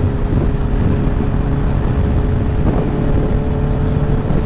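Honda CBR650F inline-four motorcycle riding at a steady speed through strong storm wind: a dense, loud rumble of wind buffeting the microphone over the engine's steady drone.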